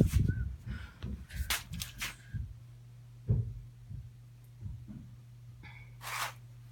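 Scattered light knocks and brief rustles of handling over a steady low hum, the loudest knock about three seconds in and a short rustle near the end.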